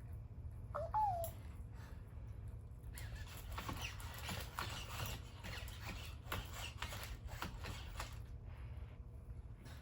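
Sony aibo robot dog answering a 'go forward' command: a short electronic chirp that rises then falls about a second in, then a run of light paw taps and leg-servo clicks as it walks, from about three seconds in to about eight.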